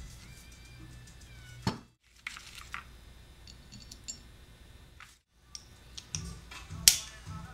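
Small metal clicks and knocks from handling the parts of a Klipsch K-55-M compression driver and a nut driver on a tabletop, with a sharp tap about a second and a half in and another, louder one near the end.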